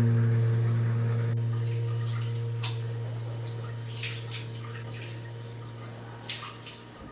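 Background music ending on a held low note that fades slowly away, with faint small clicks and taps over it.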